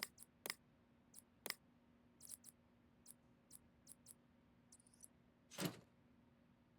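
Scattered small clicks and taps of hard parts being handled during a PC assembly, about a dozen light ticks, with one louder knock near the end over a faint steady hum.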